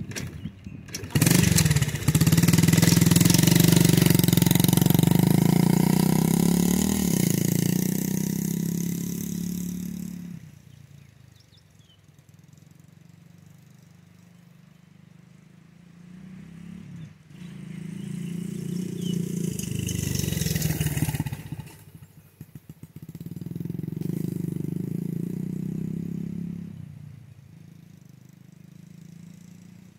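A child-size dirt bike's small single-cylinder engine revs up suddenly about a second in and pulls away, loud close by and then fading as the bike rides off. It comes back twice, swelling and fading, around the middle and again near the end.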